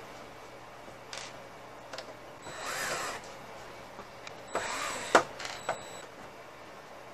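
Cordless drill/driver running in two short bursts on the screws of a synthesizer's front panel, each burst winding up and back down, followed by a sharp click and a smaller one.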